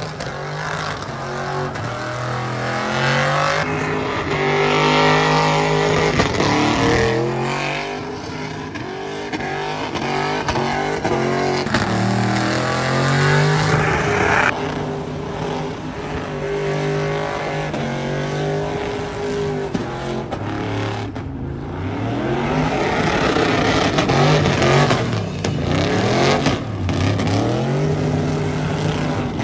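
Chevrolet Silverado pickup's engine revving hard during a burnout and donuts, its pitch climbing and dropping again and again, with the rear tyres spinning and screeching on the pavement.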